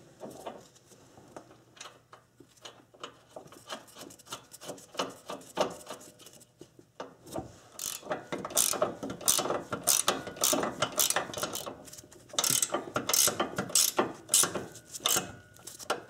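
Ratcheting wrench clicking in quick runs as the nut is run down onto the new stabilizer link's stud. The clicks are sparse and faint at first and come in louder, faster runs from about halfway through.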